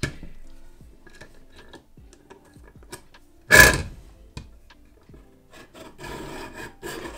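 Caran d'Ache hand-crank pencil sharpening machine being turned, its cutter shaving a pastel pencil down to a fine point. Light ticking from the mechanism, a brief louder clunk about three and a half seconds in, then a steady scraping rasp over the last second or so.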